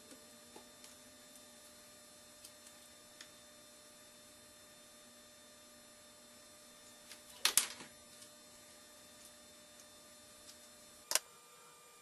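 Faint steady electrical hum with a few light clicks, a quick cluster of louder clicks about seven and a half seconds in and one sharp click near eleven seconds.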